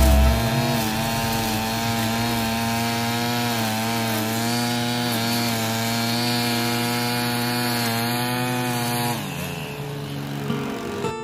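Two-stroke gas string trimmer running at high throttle, its engine note wavering slightly in pitch as the line cuts through tall, thick grass. About nine seconds in, the engine note drops away.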